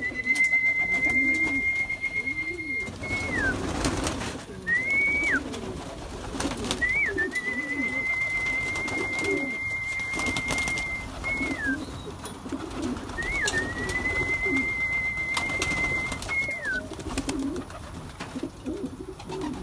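Racing pigeons cooing in a loft, their low coos going on throughout. Over them a thin, steady, high whistle is held for several seconds three times, with a short one between the first two.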